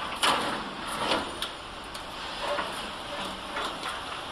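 Metal knocks and scrapes of a packaging-machine conveyor tail frame being handled and set into place at the wrapping machine's infeed: a loud knock just after the start, another about a second in, then lighter knocks.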